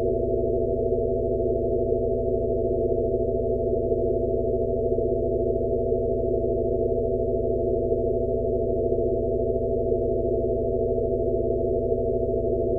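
Steady electronic sound-therapy drone, a 'Rife frequency' tone track for tinnitus relief: several low pure tones held together over a band of soft hiss, all of it low in pitch, with a faint pulse about every second and a quarter.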